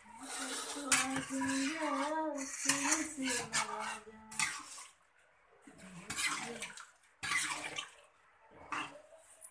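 Steel kitchen plates and utensils clattering and clinking in irregular bursts, with a voice in the background during the first few seconds.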